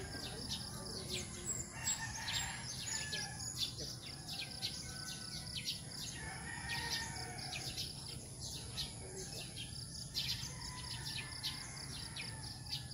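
Morning chorus of several birds chirping and calling, many quick high chirps with some longer, lower calls in between, over a steady high whine.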